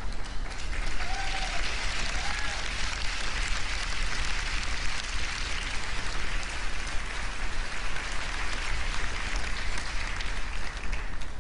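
A large audience applauding, the clapping building up within the first second and dying away near the end.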